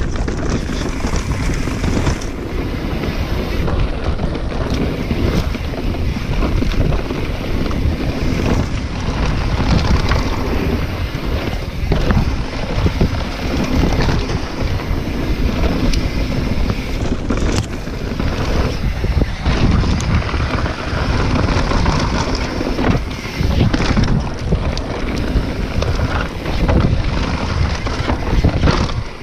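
Wind buffeting the microphone of a mountain biker's action camera during a fast downhill run, over the steady rumble of knobbly tyres on dirt and rock, with frequent rattles and knocks as the bike clatters over stones and roots.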